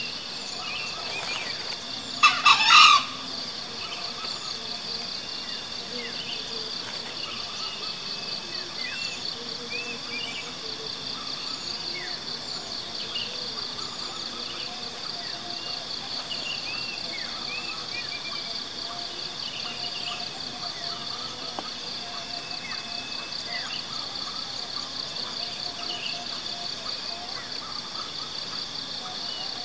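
Green junglefowl giving one short, hoarse crow of a few pulses about two seconds in. Under it a steady high insect drone runs on, with small birds chirping.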